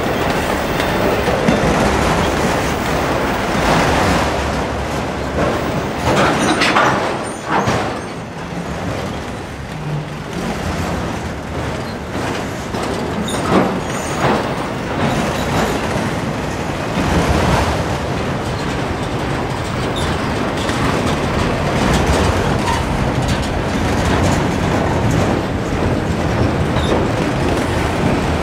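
Auto rack freight train rolling past, a steady rumble of wheels on the rails with clatter from the cars, and a few brief louder bangs.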